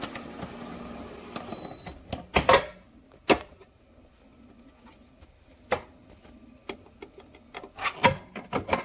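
A compressor ice cream maker's lid and bowl being handled: a steady machine hum for the first two seconds, then several sharp plastic clicks and knocks, a cluster of them near the end, as the lid is unlatched and opened to get at the finished ice cream.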